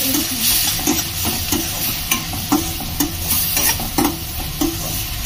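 Chopped onions and green chillies sizzling in hot mustard oil in a steel kadhai, stirred with a steel ladle whose strokes scrape the pan about twice a second. The onions are being sautéed to cook out their rawness.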